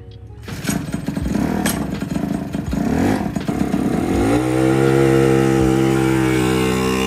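Mazda Miata's four-cylinder engine revving: a rough, rising run for the first few seconds, then swept up and held at a steady high pitch from about four seconds in.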